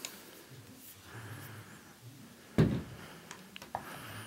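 Light handling noise around a cardboard box, with one solid thump about two and a half seconds in as the night vision unit is set down on a wooden tabletop.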